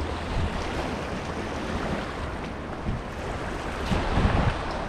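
Small waves washing and splashing against the rocks of a jetty, with wind rushing over the microphone. The noise grows louder about four seconds in.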